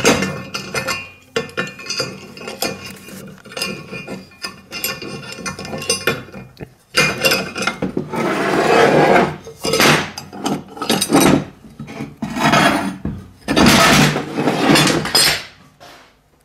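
Steel plates and hand tools clanking and scraping against a steel welding table as a welded steel piece is handled and flipped over. Scattered knocks and scrapes grow louder about halfway through.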